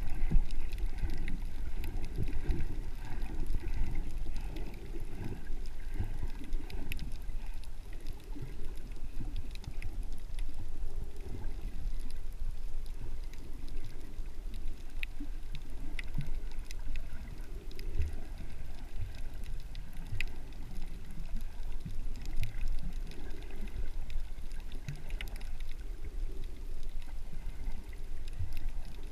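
Underwater water noise picked up by a submerged camera: a muffled, uneven low rush of moving water that surges and eases, with faint scattered clicks.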